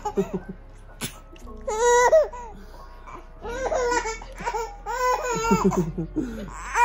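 A baby laughing in several bursts while being nuzzled, with background music underneath.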